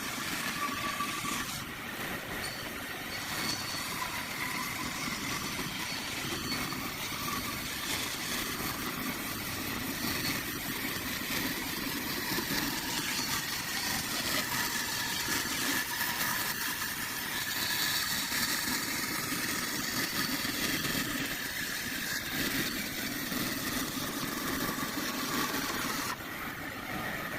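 A woodworking power tool's motor running steadily, with a slight drop in level near the end.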